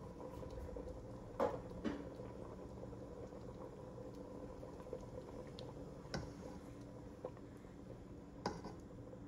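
Faint steady hum with a few soft clicks and knocks, the loudest about one and a half seconds in.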